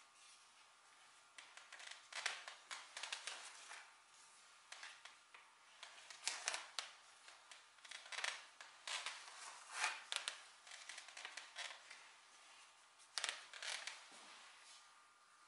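Seat of an old swivel chair being turned by hand on its threaded metal spindle: quiet, irregular scraping and clicking in clusters with short pauses.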